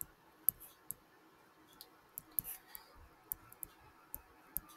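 Faint, irregular clicks and taps from handwriting being drawn on screen with a pen tool, a click at roughly each pen stroke, over low room hiss.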